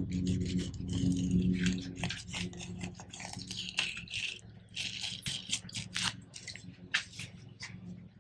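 A long granton-edged knife cutting and scraping through the skin and scales of a large mahi-mahi: a run of irregular crackling scrapes and clicks that thins out towards the end, over a steady low hum.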